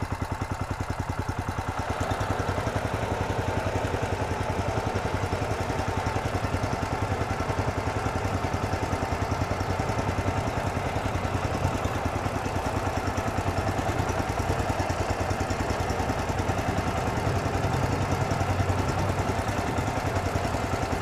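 Honda 13 hp single-cylinder petrol engine of a walk-behind tractor pulling a trailer uphill in fourth gear at minimum revs: running steadily with an even, fast beat, getting a little louder as it comes closer. It pulls the climb without bogging down or stalling.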